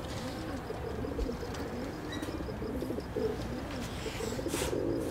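Pigeons cooing, a low coo that rises and falls about once a second over and over. Near the end a brief rustle comes as a cardboard box is handled.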